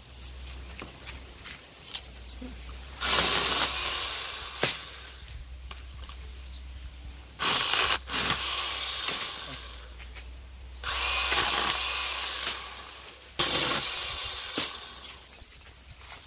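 Parkside PAHE 20-Li A1 cordless pole pruner's electric chain saw cutting into a tree branch in about five short runs, each starting suddenly as the trigger is pulled.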